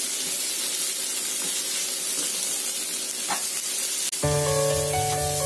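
Mushrooms and onions sizzling in oil in a frying pan as they are stirred with a spatula. About four seconds in, background music with a bass line starts over the sizzling.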